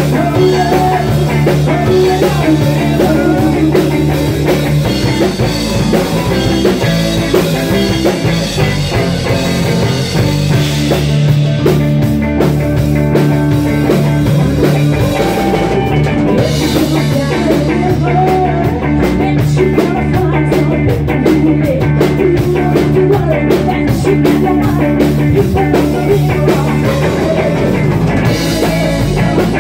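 Rock band playing loudly on drum kit and guitar, with the cymbals coming more to the fore about halfway through.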